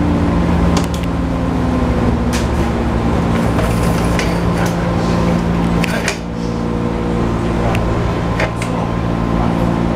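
JR 205 series 1000-subseries electric train running, heard inside the passenger car: a steady low hum and rumble, with a few sharp clicks from the wheels on the track.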